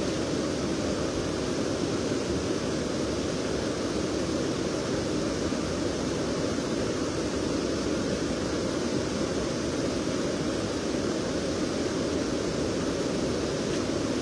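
Steady rush of a fast, swollen river in flood, an even, unbroken roar of water.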